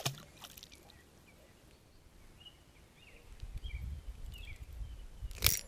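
Quiet outdoor ambience with a brief splash at the start and a few faint short bird chirps, then low rumbling handling noise on the microphone from a little past the middle and a sharp click just before the end.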